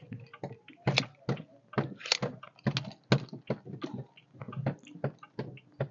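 A series of irregular light clicks and knocks, a few a second.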